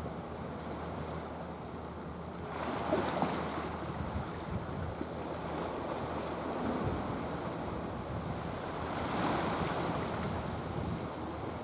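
Sea water washing and lapping, with wind rumbling on the microphone. The wash swells louder twice, about three seconds in and again about nine seconds in.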